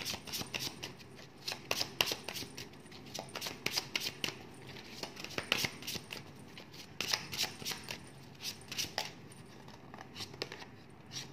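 A deck of tarot cards being shuffled and handled for a single draw: a long run of quick, irregular card clicks and flicks.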